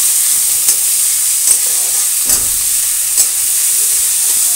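Chopped onions sizzling in hot oil in a steel kadhai, stirred with a long steel spatula that scrapes against the pan in regular strokes about once a second.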